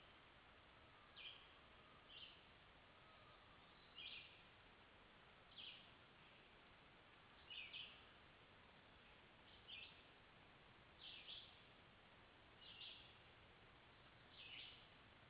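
A bird calling repeatedly, faint short high notes about every one to two seconds, some of them doubled or falling in pitch, over a steady low hiss.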